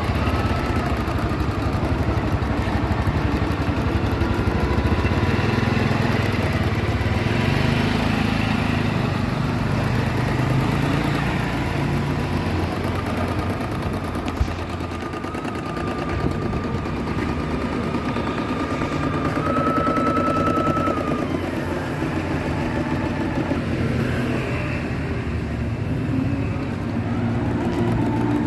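Computerised embroidery machine running, its motor whirring under a fast, even clatter of needle strokes, with a whining tone that shifts in pitch now and then.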